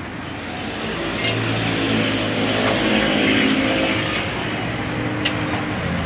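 A motor running with a steady hum that grows louder over the first few seconds, with a couple of sharp metallic clicks.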